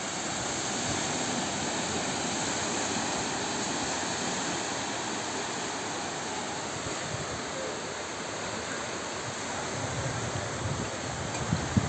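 Sea waves breaking and washing up on a sandy beach, a steady rushing surf. Near the end, low gusts of wind buffet the microphone.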